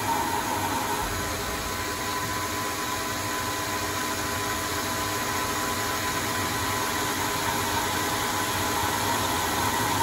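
Proto-Trak L2 CNC lathe running through a rough-turning pass, a carbide insert cutting the end of a propeller shaft: a steady machine hum with a few constant tones. The pass runs at a cautious rate because the shaft's free end has no tailstock center supporting it.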